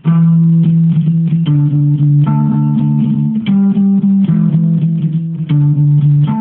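Electric guitar with EMG active pickups played on a clean tone through an amp: low single notes and chords held and changing every half second to a second, with the pick attacks clearly audible.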